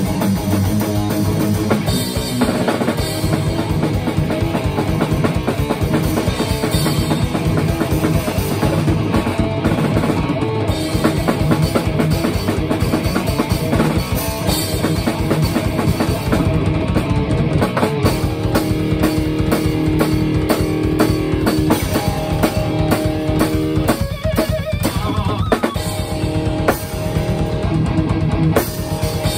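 An electric guitar and a drum kit playing a fast, heavy rock song together live, with a rapid, even bass-drum pulse under the guitar riffs.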